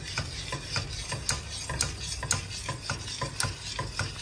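Metal spoon stirring thick, creamy pasta in a stainless steel pot, with a few sharp clicks a second as the spoon knocks and scrapes against the pot, over the wet slop of the sauce.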